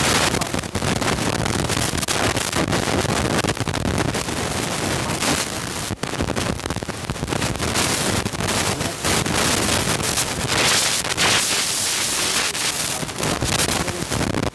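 Loud, steady rushing noise on the recording, broken by frequent crackles, like wind buffeting the microphone.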